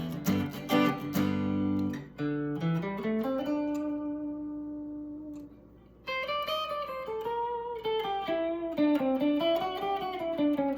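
Electric guitar on its top pickup switched to single-coil mode: a few strummed chords, then a melodic single-note line with bent, wavering notes. The line dies away to a short lull about halfway, then picks up again.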